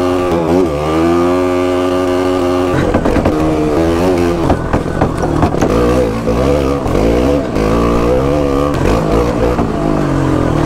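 Motorcycle engine pulling at low revs on a muddy dirt track, steady at first with a brief dip in pitch. From about three seconds in, the throttle opens and closes over and over, so the engine note keeps rising and falling.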